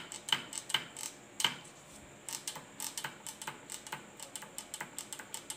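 Shimano hydraulic brake lever being squeezed and released over and over, each pull giving a sharp creaking click. The clicks pause briefly about one and a half seconds in, then resume quicker and softer. The creak is from a dry lever pivot that, according to the owner, just needs oil.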